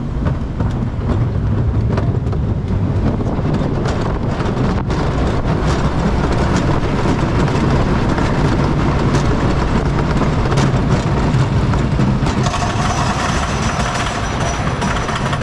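Wooden roller coaster train rolling over wooden track: a loud, steady rumble with a few sharp clicks and clacks from the wheels. Near the end a steady mechanical whine joins in as the train reaches the lift hill.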